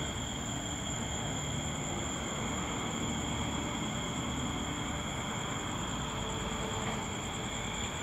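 Steady, high-pitched chorus of night insects such as crickets, over a low, even rumble.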